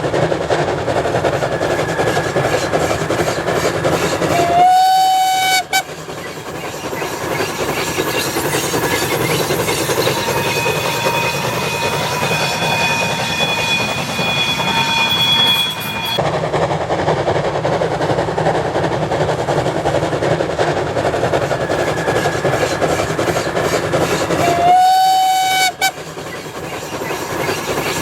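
Steam locomotive BR 98 886, built 1924, on the move with a steady running noise. Its steam whistle sounds twice, each blast about a second long with a slight upward slide at the start, first about five seconds in and again near the end. In the middle, the running noise carries thin, steady high tones.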